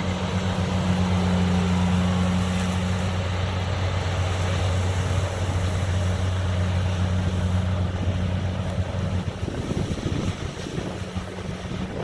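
Rice harvesting machine's engine running steadily with a low hum over a noisy rumble. The hum drops out about nine seconds in, leaving the rumble.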